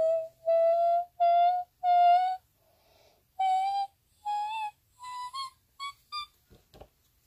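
A child's voice singing a drawn-out high note that ends just after the start, then about eight short notes climbing step by step in pitch, each shorter and fainter than the last. A couple of soft thumps come near the end.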